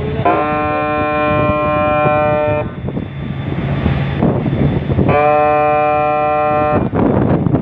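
Ship's horn sounding two long blasts, each about two seconds, a few seconds apart, over the steady drone of the vessel's engine.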